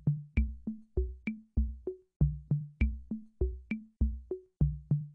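Electronic music: a steady drum-machine beat of about three hits a second, with deep kick-drum thumps and short higher clicks.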